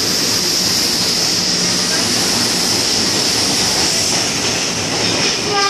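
Moving train heard from its open doorway: a loud, steady rumble and rush with a high steady hiss over it. The train's horn starts just at the end.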